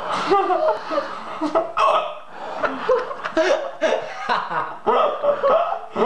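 A man laughing uncontrollably in short, repeated bursts, his laughter broken by hiccups.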